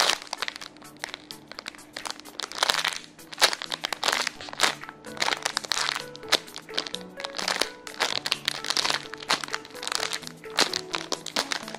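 Clear plastic bag crinkling repeatedly as a foam squishy toy sealed inside it is squeezed and released, over soft background music with a gentle melody.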